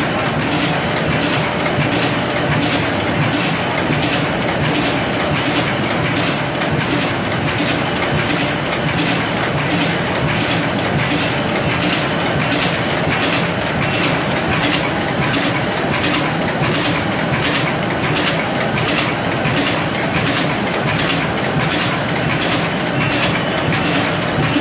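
Automatic carton box stitching machine running continuously: a steady mechanical din with a regular, repeating clatter from its moving parts.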